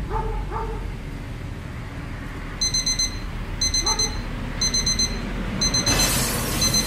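Digital alarm clock beeping: a high electronic beep in quick groups of rapid pips about once a second, starting about two and a half seconds in. Near the end it becomes an unbroken run of rapid pips.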